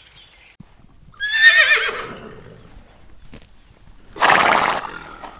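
An animal's wavering, falling call about a second in, then a short, harsh, noisy blast about four seconds in.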